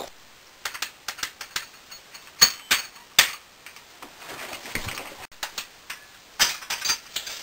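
A string of light, irregular clicks and knocks from a scoped rifle being handled and aimed, with a denser run of clicks near the end.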